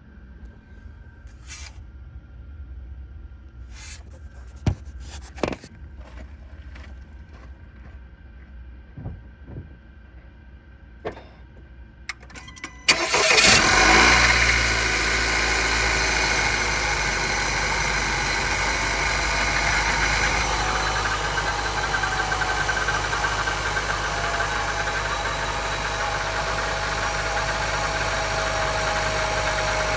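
A few light clicks and knocks, then a 2020 Honda Accord's 2.0-litre turbocharged four-cylinder cold-starts about thirteen seconds in. It is loud for a moment, then settles into steady running. A thin moaning tone slowly falls in pitch as it idles.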